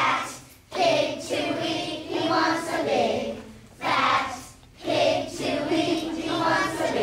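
Young children singing a song from a school opera, in phrases of a second or two with short breaks between them.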